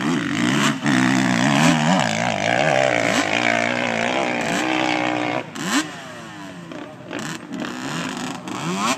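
ATV engine revving, its pitch rising and falling repeatedly. About five and a half seconds in it drops off and runs quieter, with a few more short revs.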